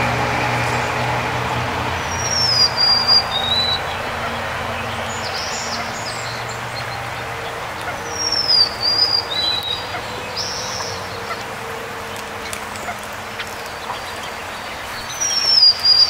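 A songbird sings a short whistled phrase three times, about every six seconds: a slurred falling note followed by a short lower note. Under it, a low traffic hum fades away in the first half.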